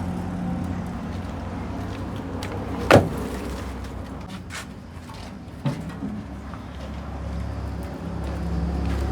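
An engine or motor running steadily, with two sharp knocks: one about three seconds in, and another nearly three seconds later.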